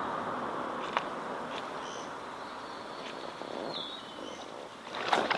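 Short, faint bird chirps over a steady, slowly fading outdoor hiss, with one click about a second in. Just before the end, loud water splashing and rustling close to the microphone.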